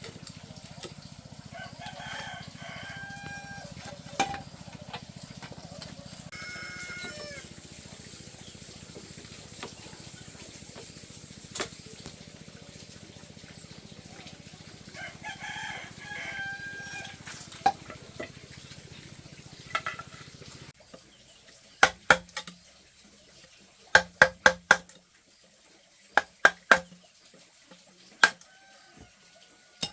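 A rooster crows three times over a steady low background noise. In the last third, a run of sharp knocks comes in pairs and small groups, louder than the crowing.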